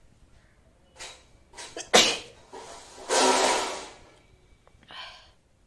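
A woman sneezing. A few catching breaths lead into a sharp sneeze about two seconds in, followed by a long, loud breathy burst and a short breath near the end.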